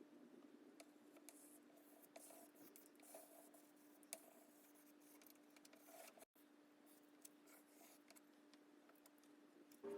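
Near silence: room tone with a faint steady hum and a few faint ticks and light scratches, broken by a brief dropout a little past the middle.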